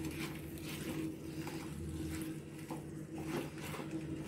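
Wooden spatula stirring fried soya chunks through thick sauce in a pan: faint, scattered scrapes and taps over a steady low hum.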